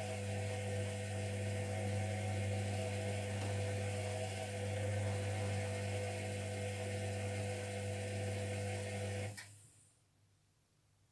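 Zerowatt/Hoover Performa 1000 HZ1042 washing machine turning its drum during the wash with a steady motor hum. The hum stops suddenly with a click about nine seconds in, as the drum pauses between turns.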